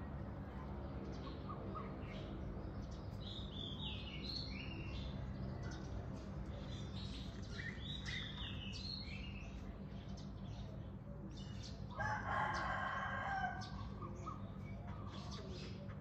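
Small birds chirping in short high phrases, and a rooster crowing once about twelve seconds in, the loudest sound; a steady low hum underneath.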